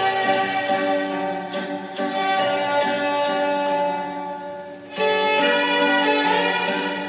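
Background music with long held melodic notes, dipping briefly about five seconds in before coming back louder.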